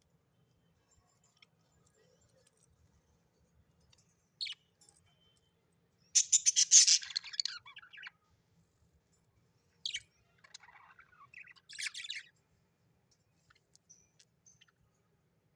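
Budgerigars chirping in short bursts: a brief call about four seconds in, a longer burst of rapid chirps a little after, then more calls and soft chatter later on.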